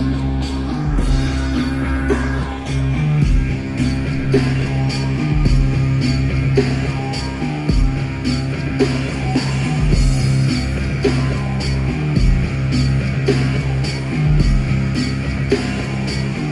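Recorded music with a steady beat and a sustained bass line, played back over MartinLogan Neolith electrostatic loudspeakers.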